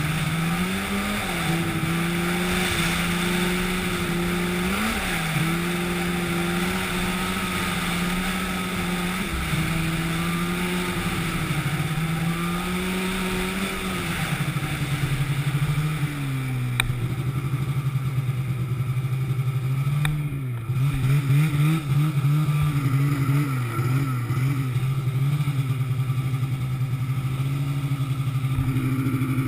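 An engine runs steadily at a constant pitch, with brief dips as if loaded. About halfway through it settles to a lower pitch, turns uneven for a few seconds, then climbs again near the end.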